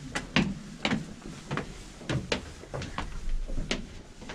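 Footsteps of hard-soled boots climbing stone stairs: a quick, uneven run of sharp steps, about two or three a second.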